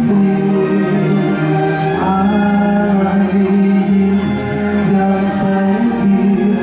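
Live music from a navy band: a slow piece of long held chords, with a voice singing over it.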